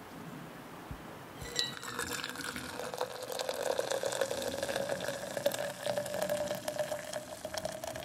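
Hot coffee poured from a stainless steel pot into a stainless steel tumbler, starting about a second and a half in. The pitch of the pour rises slowly as the tumbler fills.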